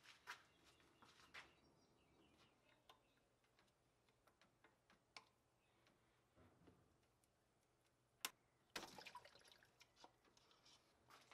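Near silence with faint, scattered clicks and handling noises from pliers and hose clamps as the coolant hoses are worked off the throttle body. One sharper click comes about eight seconds in, followed by a brief rustle.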